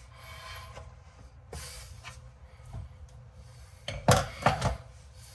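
Faint handling noises from dishwasher parts being worked by hand: rubbing and light clicks, with a short cluster of sharper knocks about four seconds in.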